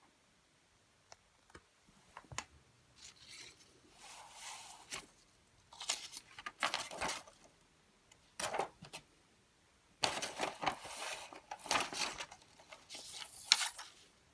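Handling noises: a few sharp clicks, then irregular bursts of rustling and scraping, with no motor running.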